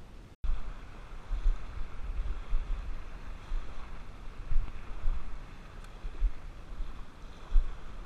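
Wind buffeting the camera microphone in irregular gusts, over the steady rush of a fast-flowing river. The sound cuts out briefly about half a second in.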